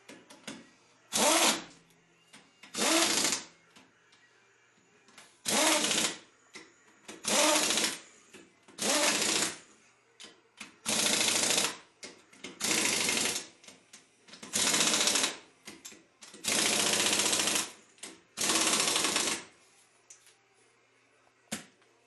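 Pneumatic impact wrench hammering lug nuts onto a wheel. It runs in about ten short bursts of around a second each, a second or two apart, one burst per nut.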